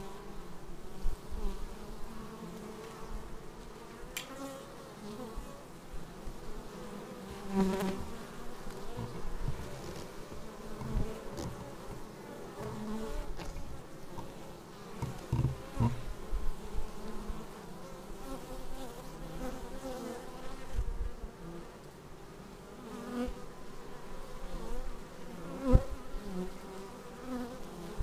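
Honeybees buzzing at a hive entrance: many overlapping wingbeat hums that swell and fade as foragers fly in close and land, with a few sharp knocks, the loudest near the end.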